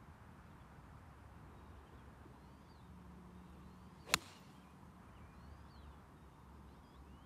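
A golf club striking the ball on a full swing: one sharp impact about four seconds in.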